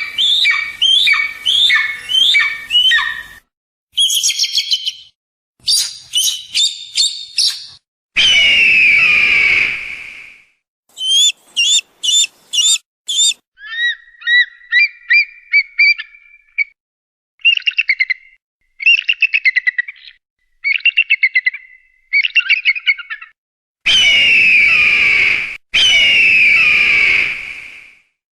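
Hawk calls: a quick series of sharp falling cries, then long hoarse screams of about two seconds each and bouts of faster chattering, in separate runs broken by sudden silences. Two long screams come back to back near the end.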